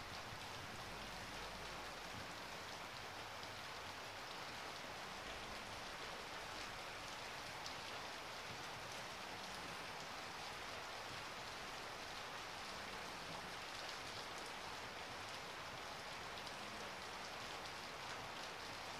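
Steady rain falling, an even wash of drops with no change in strength.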